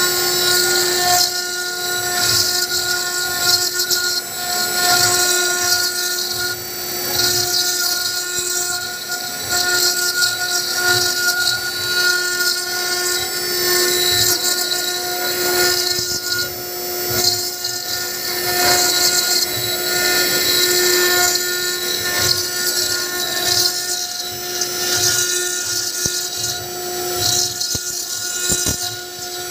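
CNC stone-carving router's spindle cutting into a white stone slab with a fine carving bit under coolant spray: a steady whine over a loud, high hiss of cutting.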